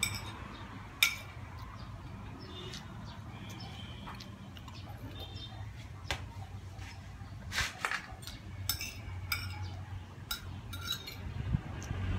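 Metal spoon and fork clinking and scraping against a ceramic plate as food is scooped up, in scattered separate clicks, more of them in the second half.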